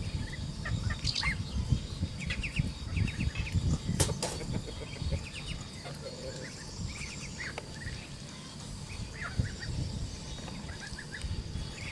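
Poultry calling: short high chirps in quick little runs, scattered throughout, over a low rumble, with one sharp click about four seconds in.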